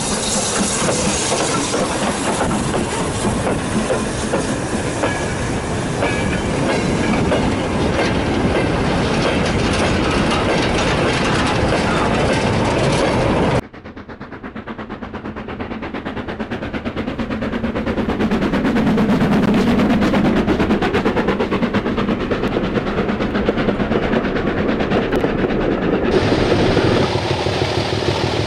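OO-gauge model trains running on layout track, wheels clicking over the rail joints. About halfway through the sound cuts off sharply and another train is heard coming closer and growing louder, then the sound changes again near the end.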